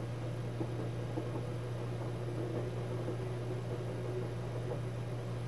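Steady low hum and hiss inside a 24 series sleeper-train compartment. Another train passes faintly beyond the closed window.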